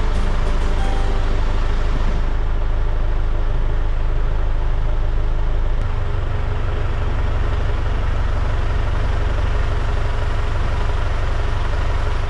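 A heavy vehicle engine running steadily, with a deep low rumble; its low note shifts slightly about six seconds in.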